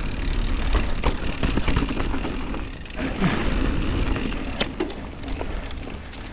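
Mountain bike rolling over a dirt trail, with wind buffeting the microphone in a steady low rumble and short rattles and knocks from the bike over bumps.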